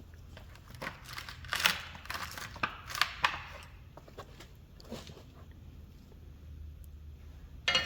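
Scraping and crackling of a metal probe tool being worked in a puncture in a mower tire, in a run of short scratchy strokes, loudest in the first half.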